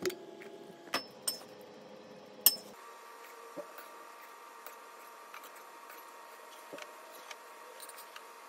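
Sharp plastic clicks and knocks from hands working an electric egg steamer, four in the first few seconds, the last and loudest ringing briefly. Then faint room tone with a few light taps of a spoon in a dish.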